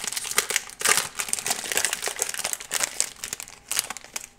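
Foil wrapper of an Upper Deck hockey card pack crinkling as it is opened and handled, a dense irregular crackle that thins out near the end.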